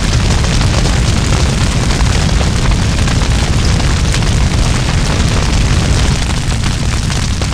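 Cartoon fire sound effect: a big blaze burning loud and steady, a deep rumble under dense crackling.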